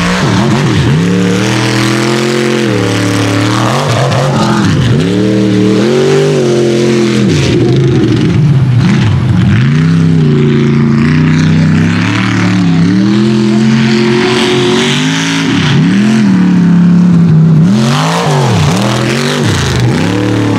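Mega mud truck's engine revving hard, its pitch climbing and dropping over and over as the throttle is stabbed on and off while the truck crosses the dirt obstacles.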